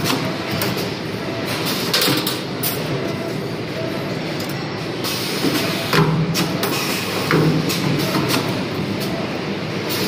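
CNC wire bending machine running, a steady mechanical whir with several sharp clacks as it works.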